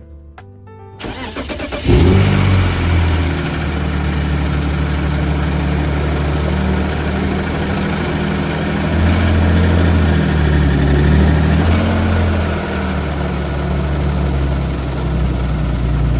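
BMW E36 engine cranked by the starter, catching about two seconds in, then idling loudly and steadily with a slight waver.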